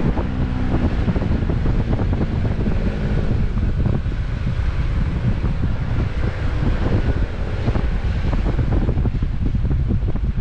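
Wind buffeting an action camera's microphone on a moving off-road vehicle, over the vehicle's engine running and the rumble of driving on a dirt trail.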